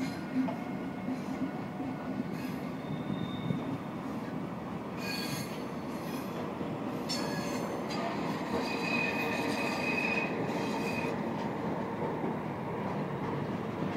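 Intermodal freight train of trailer and tank-container wagons rolling past close by, a steady rumble of wheels on the rails. High-pitched wheel squeal comes and goes several times, the longest stretch about two-thirds of the way through.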